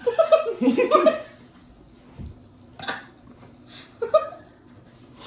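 Short bursts of a person's voice: about a second of vocal sound at the start, then brief sounds about three and four seconds in, with quiet between.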